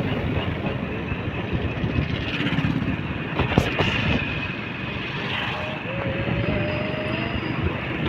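Wind rushing over the microphone while riding a motorbike along a road, with the engine running steadily underneath.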